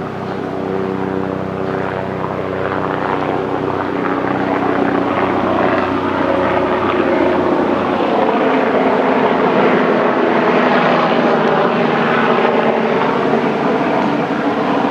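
An aircraft flying over: a steady engine hum fades out while a louder rushing noise builds and peaks past the middle.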